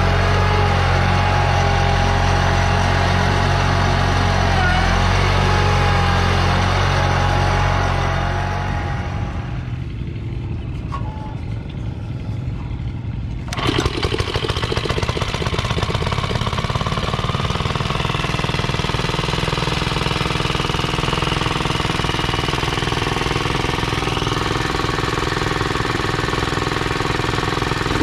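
A Massey Ferguson garden tractor's engine running steadily under load as it pulls a moldboard plow through sod. After a few quieter seconds, about halfway through, the sound of a Bolens walk-behind tractor's small engine comes in suddenly and runs on with rapid, even firing.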